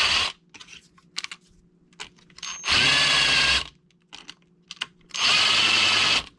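Power drill running a countersink bit into plastic in short bursts of about a second each. One burst ends just after the start and two more follow, with small clicks of handling between them.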